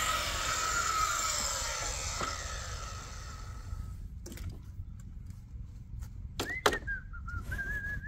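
Circular saw blade spinning down after a cut through wood, its whine falling in pitch and fading over the first few seconds. Then scattered knocks of tools and boards on the bench, two sharp ones a little past the middle, and a wavering high whistled note near the end.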